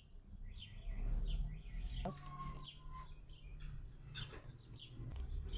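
Faint chirping of small birds: many short, high chirps one after another.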